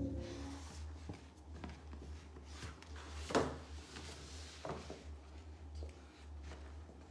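Packaging being handled and opened: scattered short rustles and clicks, with one sharp, louder click about three seconds in, over a low steady hum.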